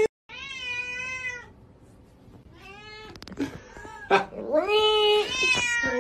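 Domestic cat meowing: a second-long meow at the start, a fainter one midway, then two loud, drawn-out meows one after the other near the end.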